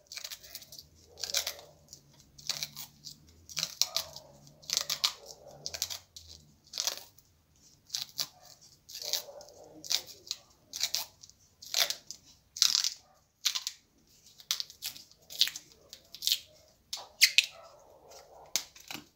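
Clear plastic strip crinkling and crackling as it is stretched and wound tightly around a mango stem cutting to seal it for rooting. The crackles come irregularly, about one a second, some in quick pairs.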